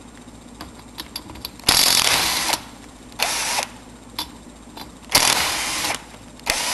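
Cordless power drill-driver run in four short bursts, backing out fasteners, with small metallic clicks from the parts between bursts. The second burst is the loudest.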